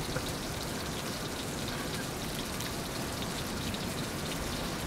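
Steady, even hiss of ocean surf washing below the cliff ledge.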